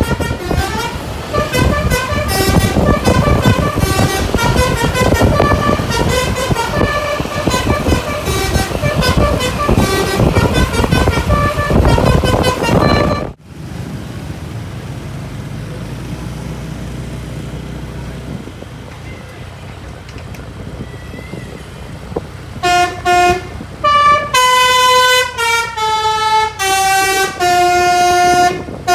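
A bus's multi-note telolet horn (Basuri "pianika" type) playing quick melodic runs of notes over a loud rumble. About 13 seconds in it cuts off to a steadier, quieter engine hum, and later the horn comes back, ending in a descending scale of notes.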